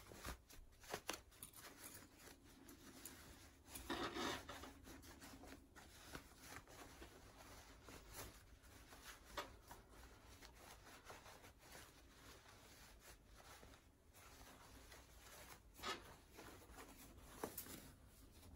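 Faint rustling and rubbing of cotton fabric as a lined scrub cap is pulled right side out through a small turning opening, with a louder rub about four seconds in and a few more near the end.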